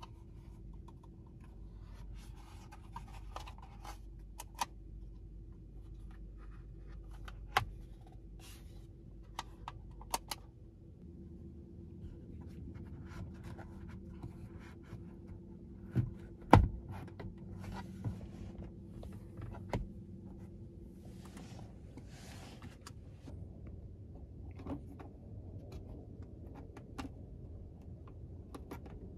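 Hard plastic trim parts being handled, pressed and pried: a sunglass holder snapped against the overhead console and a plastic pry tool worked into its edge. It gives scattered sharp clicks and short scraping rustles, with one louder knock about halfway through.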